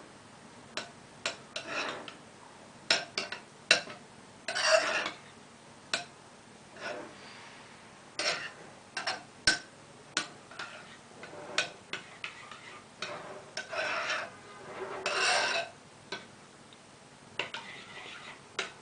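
Metal spoon stirring yogurt in a china bowl: irregular clinks of the spoon against the bowl, mixed with short scraping strokes.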